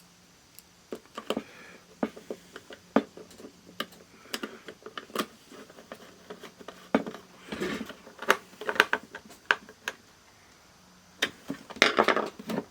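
Irregular small clicks and taps, with a few short scrapes, as a plastic analog multimeter is handled on a workbench.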